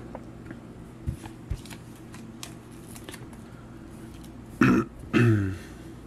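Light ticks and rustles of trading cards being handled as a stack of cards is picked up. About four and a half seconds in, a man makes two short throaty vocal sounds close together, each falling in pitch.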